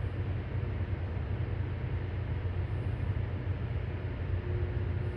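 Steady low rumble of a freight train's diesel locomotives drawing in very slowly.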